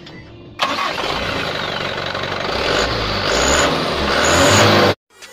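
Mitsubishi Canter truck's turbo-diesel engine revving, starting suddenly about half a second in and growing louder, with a high turbo whine that comes in a few times near the end; it cuts off suddenly.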